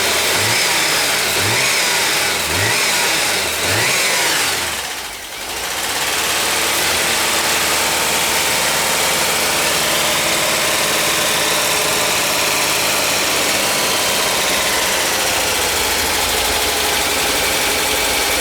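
VW T3 Westfalia water-cooled boxer engine running just after a cylinder head replacement, still rough and tappy while its valve lifters pump up. Its speed rises briefly about once a second for the first few seconds, dips around five seconds in, then holds steady.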